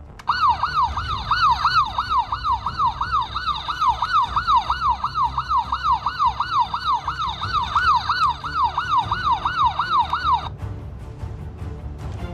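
Electronic toy police siren wailing rapidly up and down, about three sweeps a second, cutting off suddenly near the end.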